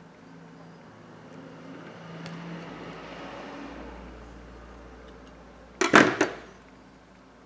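Metal spatula pry tool set down on the rubber work mat: a short clatter of a few sharp knocks about six seconds in. Softer handling and rubbing noise comes before it.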